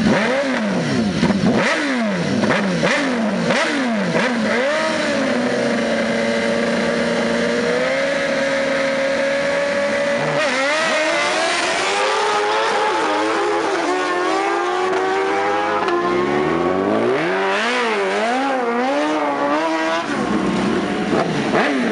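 Two BMW S1000RR inline-four superbikes revving at a drag-race start line, blipping the throttle for several seconds, then holding high revs. About ten seconds in they launch and accelerate hard, the engine pitch climbing again and again through the gear changes.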